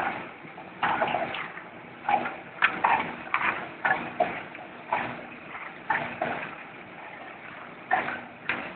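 Liquid packaging and filling machine running: a steady motor hum under repeated mechanical clacks, roughly one or two a second and slightly uneven, with a pause of about a second before the last few.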